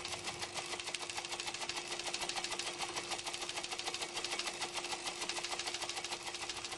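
Teleprinter printing: a fast, even mechanical clatter of about ten strikes a second over a steady motor hum.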